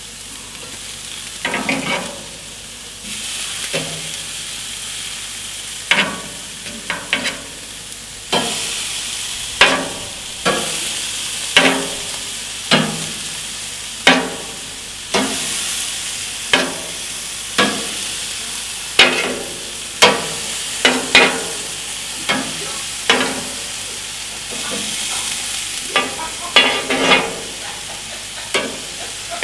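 Meat sizzling on a gas grill and in a frying pan, with metal tongs clinking sharply against the grates and pan about once a second as pieces are lifted out of the pan and laid on the grill. The sizzle grows louder at a few points as fresh pieces go down.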